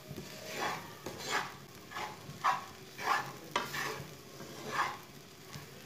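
A wooden spatula scrapes and stirs a dry semolina, chicken and vegetable mixture around a non-stick frying pan, in regular strokes about one and a half a second, over a faint sizzle. The semolina is being roasted to cook off its raw taste.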